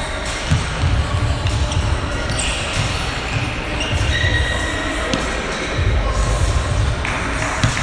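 Basketball dribbled on a hardwood court, in several runs of quick bounces.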